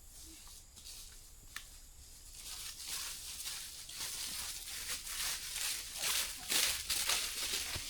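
Rustling and crackling in dry leaves and brush, starting faintly and growing busier and louder from about two and a half seconds in.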